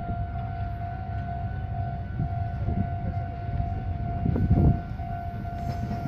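Japanese level-crossing warning bell ringing steadily in a repeating electronic clang. Under it, an approaching Meitetsu electric train rumbles in louder during the second half.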